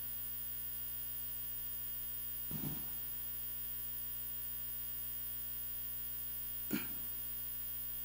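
Steady electrical mains hum in the sound system, with two brief faint noises: a soft one about two and a half seconds in and a sharper one near the end.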